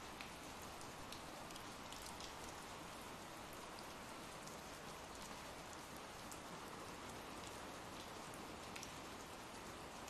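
Faint, steady rain sound effect: an even hiss of rainfall with occasional single drops ticking.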